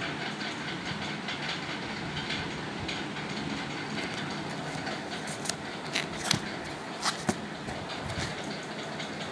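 Cardboard shipping box being handled and turned over, giving a few sharp taps and knocks a little past halfway, over a steady background noise.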